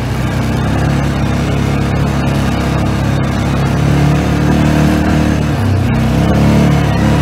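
ATV (four-wheeler) engine running while being ridden over a sandy trail, its pitch shifting with the throttle, dipping briefly near the end and then rising again.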